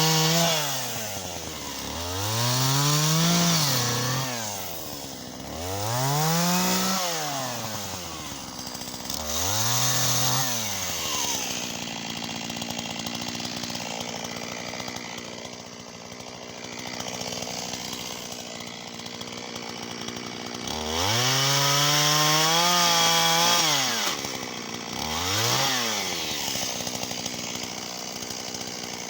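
Shindaiwa 488 two-stroke chainsaw revving. It starts at high revs and drops to idle about a second in, then revs up and falls back about five times, with a longer stretch of idling in the middle.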